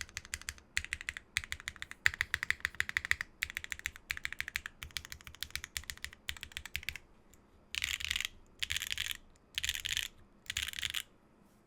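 Geonworks F1-8K custom mechanical keyboard with Geon Raw Zero switches, aluminium plate and PBT keycaps being typed on fast in quick runs of keystrokes. About seven seconds in, the typing gives way to four short bursts of dense, rapid clatter, each about half a second long.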